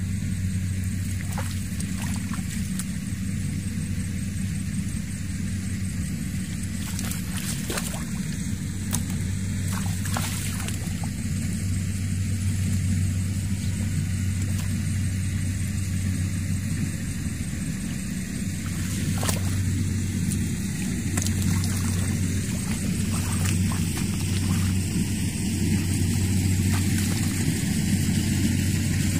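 A small engine running at a steady speed, with water pouring and trickling, and a few sharp clicks.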